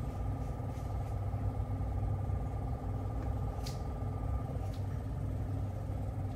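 Steady low room hum with faint tones, broken by two brief faint clicks near the middle.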